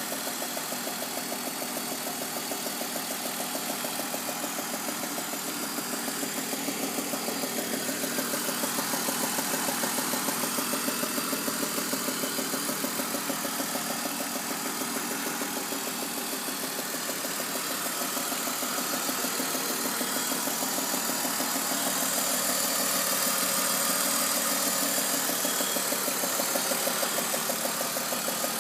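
BMW E46 engine idling with a steady, rapid, regular knocking tick. The owner suspects an exhaust manifold leak, which goes with a throatier exhaust note.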